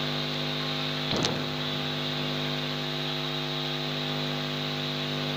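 Steady electrical hum with hiss, holding several fixed tones, and one short sound about a second in.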